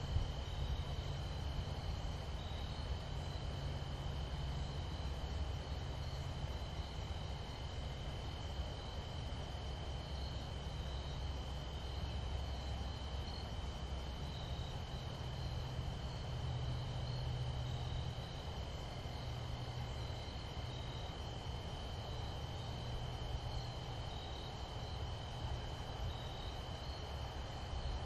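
Insects trilling in a steady, continuous chorus, with a fainter pulsing chirp above it, over a constant low rumble.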